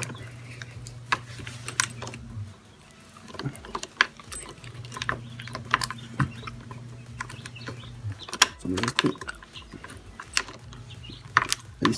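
Plastic clicks and knocks as a scooter's split throttle-grip housing is handled and snapped together around the handlebar, with a low steady hum that stops and starts twice.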